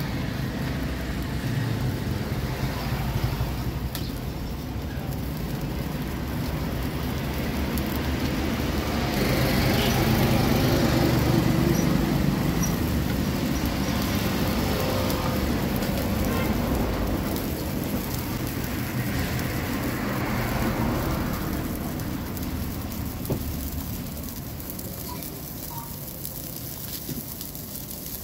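Street ambience dominated by steady traffic noise, swelling about a third of the way in and easing off near the end.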